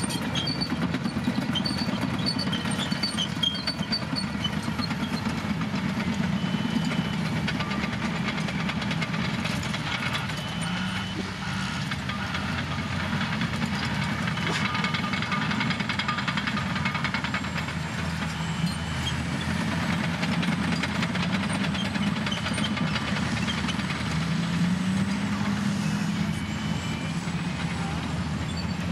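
Heavy diesel engines of Caterpillar earthmoving machines (wheel tractor-scrapers and dozers) running under load, a steady low drone whose pitch rises and falls as the machines work.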